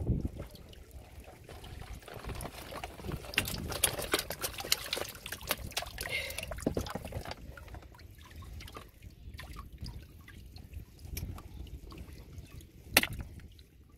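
Water trickling and dripping out of a bamboo prawn trap as it is lifted and tipped, heaviest in the first half, with small clicks of the bamboo slats being handled. One sharp knock near the end.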